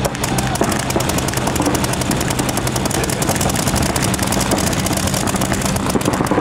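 Paintball markers firing rapidly and without a break, from several players at once: a fast, continuous stream of sharp pops, many shots a second, overlapping.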